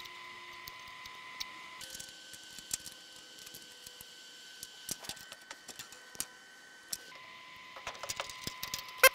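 Light clicks and ticks of a thin 22-gauge steel patch panel being trimmed with tin snips and handled into place, with a sharp louder click near the end. Under them runs a faint, steady high whine that changes pitch twice.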